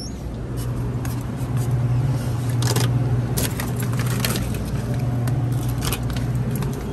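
Steady low hum of refrigerated glass-door display coolers, with a few footsteps of slide sandals on a tile floor.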